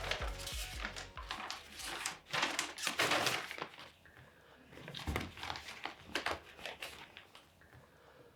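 Irregular soft knocks and rustles of someone handling things and moving about in a small room.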